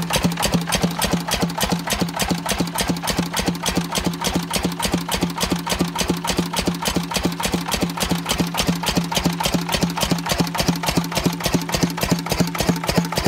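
Lister CS single-cylinder diesel stationary engine running steadily at idle: an even, rapid knocking beat from its firing strokes over a steady low hum.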